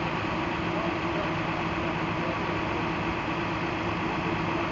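Aerial lift bucket truck's engine idling steadily, a constant low hum with no change in pitch or loudness.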